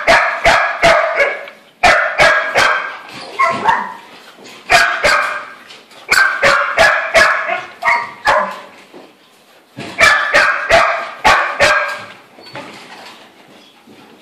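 Dog barking in play, in rapid runs of several loud barks with short pauses between the runs.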